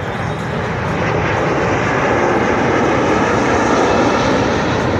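Boeing 737-800 airliner's twin CFM56-7B turbofan engines roaring in a low, fast flyby. The roar swells to its loudest about four seconds in, then begins to ease.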